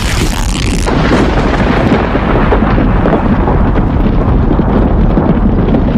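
Thunderclap sound effect: a sharp crash in the first second gives way to a long, loud, rolling low rumble.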